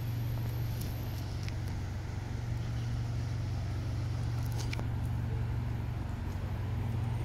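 City street traffic: a steady low engine hum under general traffic noise, with a few faint clicks.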